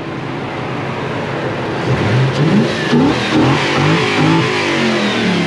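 Toyota Celsior's 1UZ-FE VVTi V8 revving in a series of quick rising blips from about two seconds in, running on an aftermarket ECU with the airflow meter removed.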